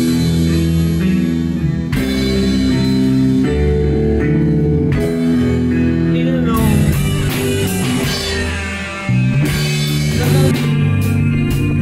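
Small rock band playing: keyboard and guitar hold sustained chords over a drum kit, the chords changing every second or two. A gliding note comes about seven seconds in, and quicker drum and cymbal hits come near the end.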